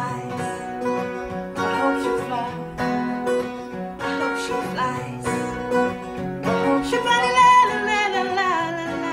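A song's instrumental stretch with acoustic guitar, and a voice singing a gliding line in the second half.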